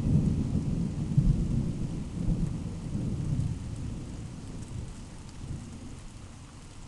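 Thunder rumbling low and rolling, loudest for the first few seconds and then slowly dying away, over a steady hiss of rain.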